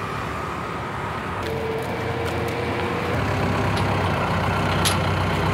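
Small truck's engine idling, a steady low hum, with a few light clicks over it.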